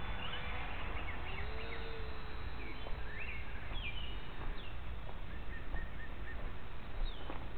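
Songbirds chirping, with short rising and falling calls repeated throughout, over a constant low rumble and a faint steady hum.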